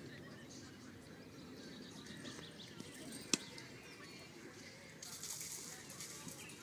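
A single sharp knock about halfway through, over outdoor background with faint bird chirps. A short spell of hissy rustling follows near the end.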